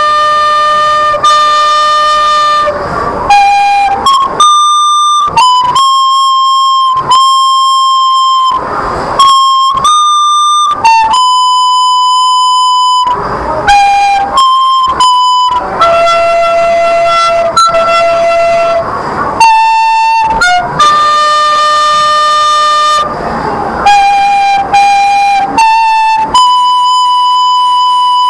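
Plastic recorder playing a slow melody, one note at a time: notes held up to a couple of seconds, with short breaks for breath between phrases.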